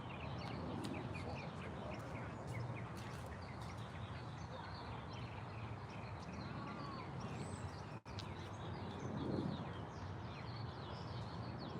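Outdoor ambience: small birds chirping over and over above a steady background noise. The sound cuts out for an instant about eight seconds in.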